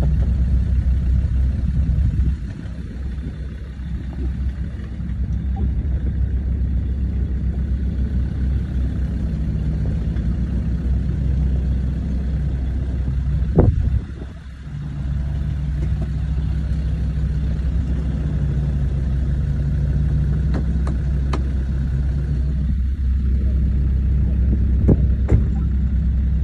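Land Rover Discovery 2 Td5's five-cylinder turbodiesel running steadily at low speed as it crawls down a rocky track. A few sharp knocks and clatters come from the stones and suspension, and the engine note drops briefly twice.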